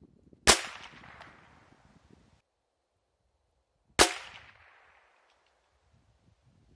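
Two shots from a CZ 457 Varmint .22 LR bolt-action rifle, about three and a half seconds apart, each a sharp crack followed by a short echo that fades over a second or two.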